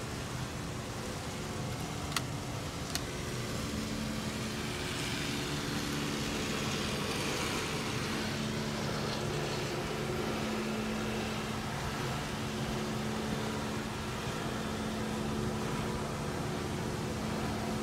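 Automatic car wash heard from inside the car's cabin: water and foam spraying against the glass over a steady low hum. The spray swells for several seconds in the first half, and two sharp clicks come about two and three seconds in.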